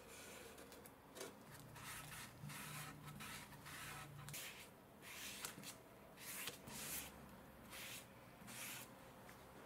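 A cloth rubbing over a stained wooden stool base: faint, irregular swishes with each wipe stroke as the finish is worked into the wood.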